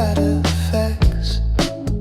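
Background music with a steady beat, bass and melody.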